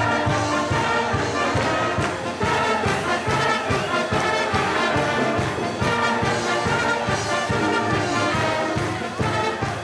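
Orchestral music with brass over a steady beat.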